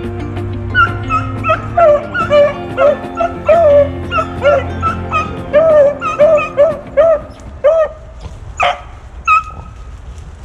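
Hunting beagles baying in the brush: a quick run of short, rising-and-falling yelps, about two or three a second, with one louder cry near the end. This is the cry hounds give while trailing a rabbit's scent.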